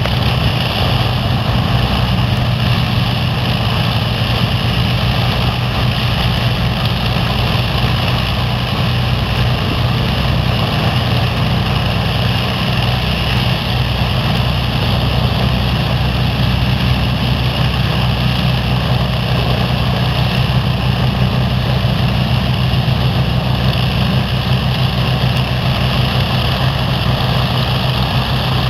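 Avro Lancaster bomber's Rolls-Royce Merlin V12 engines running steadily on the ground with the propellers turning, a loud, even, deep drone.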